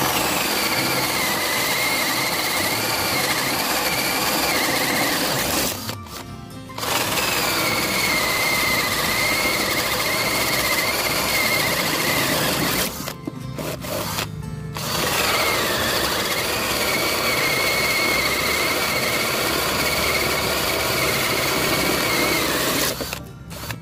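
Dekton D21 cordless drill driving a 35 mm hole saw into wood in three long runs with short pauses between. Its steady motor whine drops a little in pitch at the start of each run.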